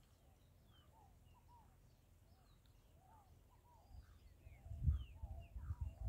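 Several birds chirping and calling with many short notes that rise and fall in pitch. From about four seconds in, gusts of wind rumble low on the microphone.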